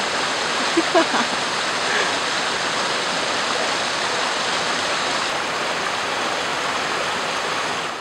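Shallow stream running over rocks, a steady rush of flowing water.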